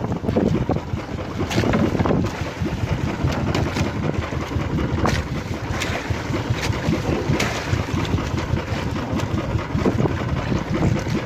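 Wind buffeting the microphone and water rushing past a small outrigger sailboat under way, with several sharp slaps of water against the hull.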